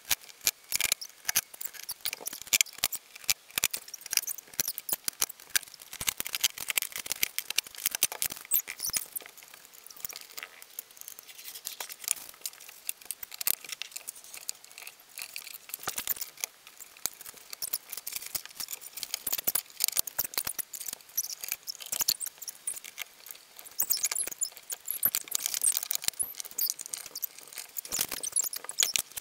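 Sped-up sound of flat-pack furniture assembly: a dense, rapid clatter of clicks and taps from panels, hardware and tools.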